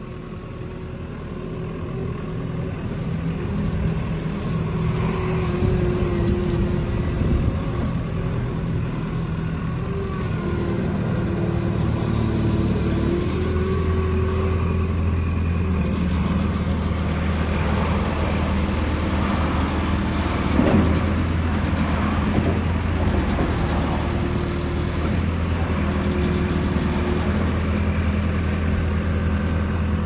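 Mustang 2109 skid-steer loader's diesel engine running as the machine drives and turns, growing louder over the first few seconds as it comes closer. A thinner steady whine runs alongside the engine, and there is a brief swell about two-thirds of the way through.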